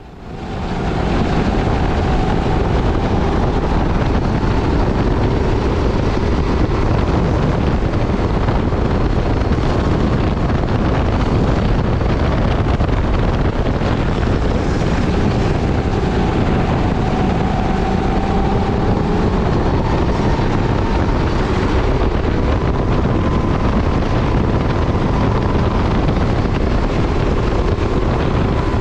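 Rental kart engine running flat out on track, heard from an onboard camera with wind rushing over the microphone. The engine note rises and falls slowly through the corners and straights.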